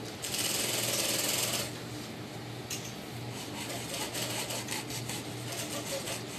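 Small pointed hand tool scraping and picking through the old stitching of a leather-wrapped steering wheel rim to strip the worn cover. A loud scraping hiss lasts about a second near the start, then a run of quick scratchy clicks follows.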